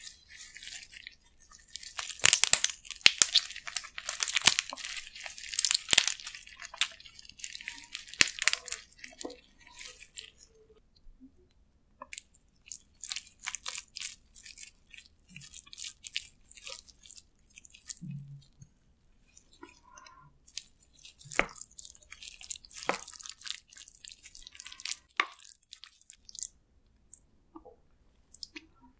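Gloved hands pulling apart and squeezing pieces of raw spicy marinated crab (yangnyeom gejang): a dense run of crackling and tearing from the shells for the first several seconds, then shorter bursts with pauses between.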